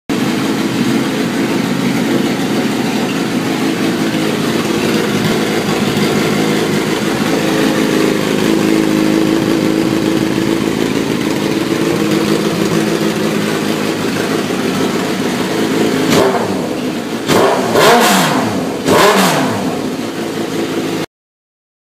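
Suzuki GSX-R1000 inline-four engine running through a custom-shortened 6-inch slip-on exhaust, idling steadily, then revved in about four quick throttle blips near the end before the sound cuts off suddenly.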